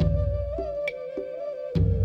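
Slow meditative background music: one long held, gently wavering melody line over deep, slow drum beats, with a drum stroke near the end.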